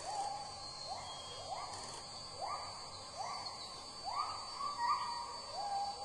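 A bird calling: a short rising whistled note, repeated about every three-quarters of a second, over a steady faint high-pitched whine.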